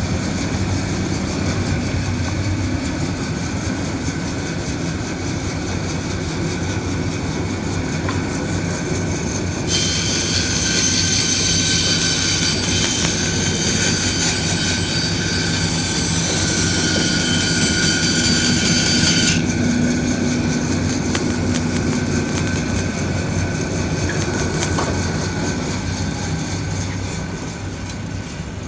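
DoAll vertical bandsaw running at high speed with a steady mechanical hum. About ten seconds in, a loud high-pitched hiss starts suddenly and cuts off again about nine seconds later. The sound eases off near the end.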